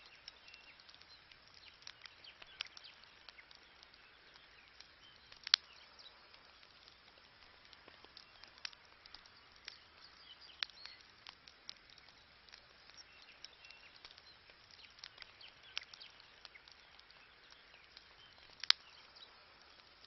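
Wood campfire crackling, with scattered irregular pops and snaps over a faint hiss of burning; two sharper pops stand out, about five and a half seconds in and near the end.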